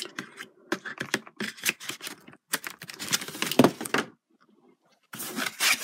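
Plastic Blu-ray case and cardboard slipcover being handled: a quick run of clicks, taps and scrapes as the case is worked back into its slipcover. The clicking stops for about a second near four seconds in, then a short scraping slide follows.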